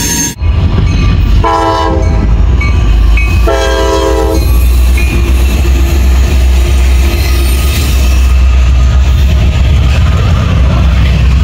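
Locomotive horn chord sounding two blasts about a second each, over the loud low rumble of a train. After the blasts come the steady rumble and rail clatter of the train rolling past.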